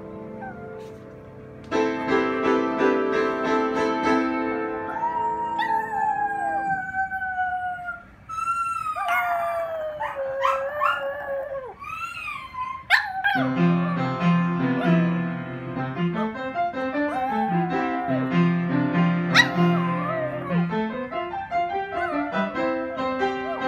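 Chihuahua howling along to music: long howls that fall in pitch, then shorter wavering howls, with the music playing on around them.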